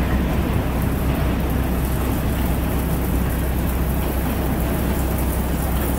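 Steady low rumble with a hiss over it, from trains and street traffic at an elevated subway station.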